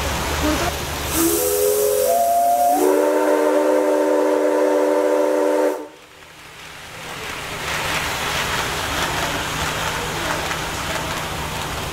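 Train whistle sounding as a chord of several steady tones, building up about a second in, held for about three seconds, then cut off suddenly. A steady hiss follows and grows louder.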